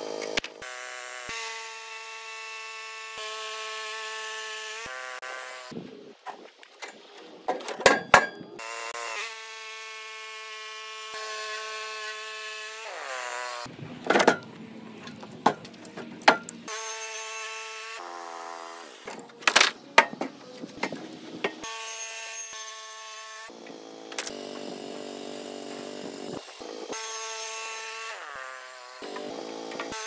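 Woodland Mills HM130MAX portable bandsaw mill running, its engine giving a steady hum that shifts in pitch every few seconds as the band blade saws through an old wooden pole. Several loud wooden clatters of sawn boards being handled break in.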